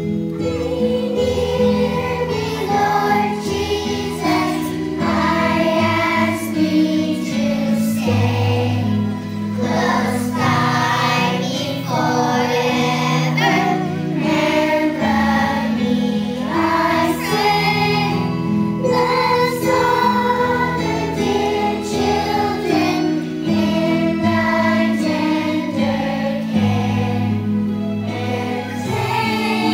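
A group of young children singing a song together in unison over a musical accompaniment.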